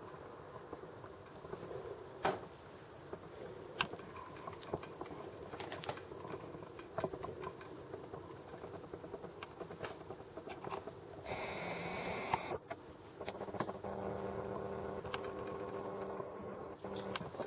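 The camera's lens zoom motor, picked up by the camera's own microphone: scattered small clicks and ticks, a brief whine about eleven seconds in, then a steady whirring hum from about thirteen seconds on.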